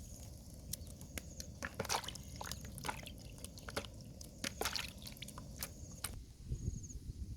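Irregular wet squishes and small clicks of raw food being handled during cooking preparation.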